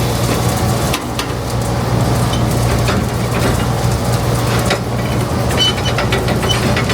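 Vehicle engine running steadily on the road, with scattered clicks and rattles and a few short high tones near the end.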